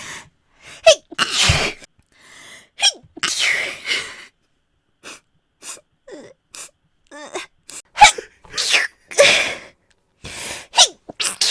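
A woman sneezing again and again, about six sneezes in a row, several of them led in by a quick voiced intake of breath.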